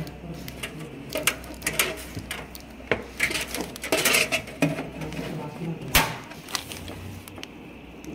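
Thin sheet-metal I/O shield clicking and rattling against the steel computer case as it is pressed into the rear port opening: a string of irregular sharp metallic clicks, the loudest about six seconds in.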